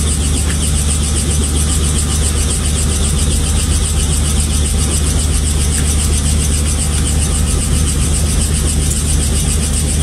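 Robinson piston-engine helicopter's engine and rotor running steadily.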